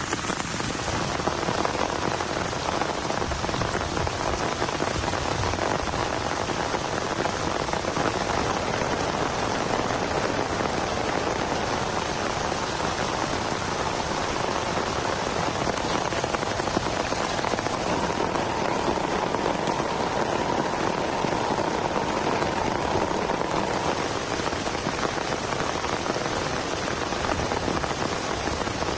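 Heavy rain falling steadily, a dense even patter with no let-up.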